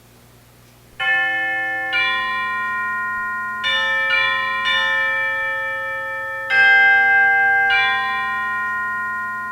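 Bell chimes playing a short tune of seven struck notes, each note starting sharply and ringing on under the next.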